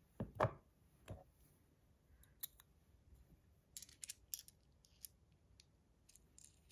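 Small metal parts clicking and knocking as a stainless steel fidget spinner and its buttons are handled and fitted: three sharp knocks in the first second or so, then a scatter of lighter clicks.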